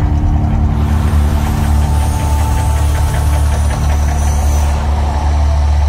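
Deep, loud, steady rumble of the Mirage volcano show as its gas flames erupt from the rock peak.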